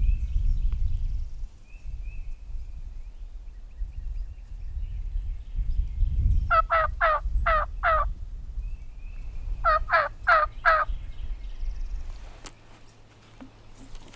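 Turkey yelps: two runs of four evenly spaced notes, each falling sharply in pitch, the first about six and a half seconds in and the second about ten seconds in, over a low rumble.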